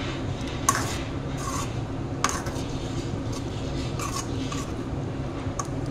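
A metal ladle stirring and scraping through thick egg curry in a metal kadai, with several sharp clinks of the ladle against the pan, the loudest about two seconds in. A steady low hum runs underneath.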